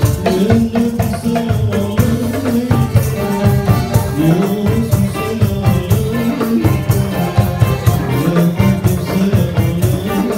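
Malay ghazal music played live: a male vocalist singing into a microphone over a steady hand-drum rhythm, with jingling tambourines and melodic lines from gambus and flute.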